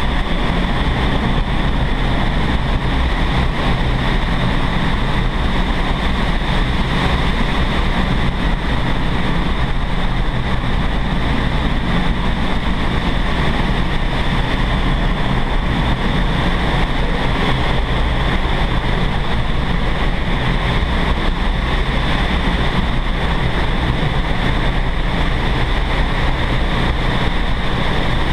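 Vertical wind tunnel running: a loud, steady rush of air blowing up through the flight chamber.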